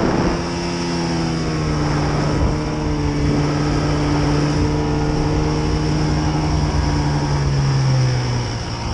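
Arctic Cat snowmobile engine running at a steady speed while the sled travels over snow. Its note falls near the end as the sled slows.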